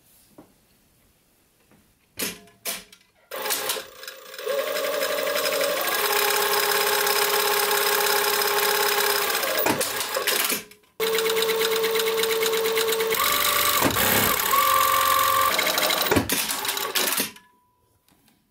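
Juki industrial sewing machine stitching fabric in two steady runs of about six seconds each, with a short stop between them about ten and a half seconds in. A few short clicks and brief starts come before the first run, and the machine's hum shifts in pitch now and then as its speed changes.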